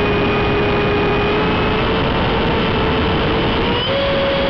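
Electric ducted-fan jet heard from a camera mounted under its nose: a steady fan whine under a heavy rush of air. Near the end the whine rises a little in pitch.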